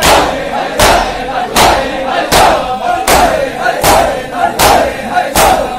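A crowd of men beating their chests in unison in Shia matam, eight sharp collective slaps about three-quarters of a second apart, with the crowd's voices chanting between the strikes.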